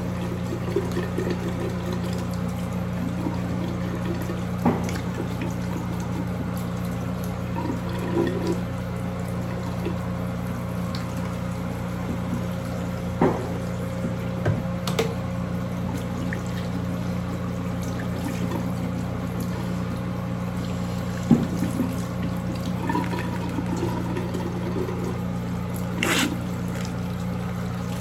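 Water running steadily, with a few knocks and clinks scattered through it.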